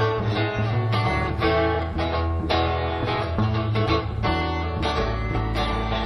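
Instrumental live acoustic guitar music: plucked and strummed guitar notes over a walking bass line, with no singing.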